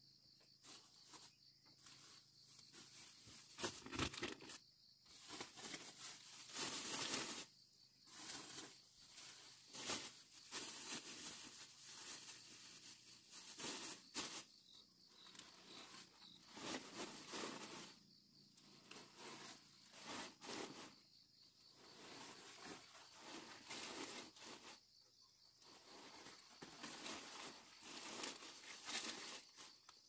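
Irregular rustling and tearing sounds in uneven bursts with short pauses, over a steady high insect drone.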